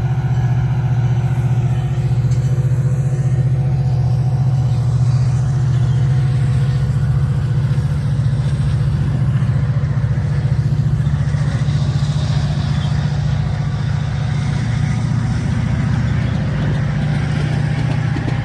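Metra diesel locomotive's engine running under power as the train pulls out: a steady low drone, with more rolling noise in the second half.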